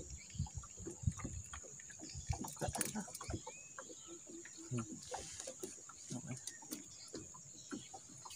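Scattered light knocks and clicks of gear being handled aboard a small fishing boat, over a steady high hiss.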